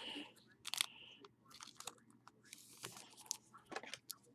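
Trading cards being handled and slid against each other: faint, irregular rustles, scrapes and small clicks of card stock.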